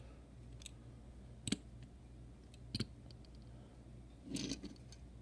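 Two light clicks and a short scuff as a diecast model pickup truck is handled and set down on a diorama road, over a faint low hum.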